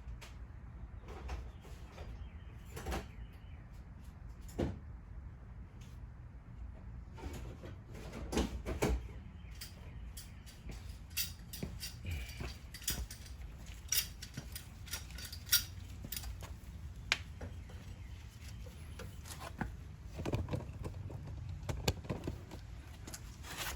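Metal hand tools and brake parts being handled: scattered sharp clicks, clinks and knocks, busiest in the middle, as a C-clamp is fetched and set against the brake caliper. A low steady rumble runs underneath.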